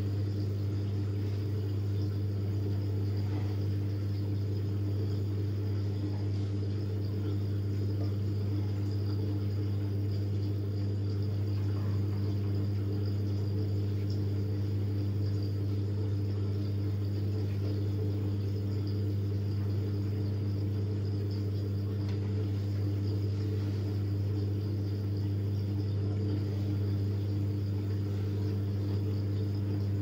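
Siemens Siwamat IQ front-loading washing machine giving a steady low hum with fainter higher tones above it, unchanging throughout, while the drum stands still.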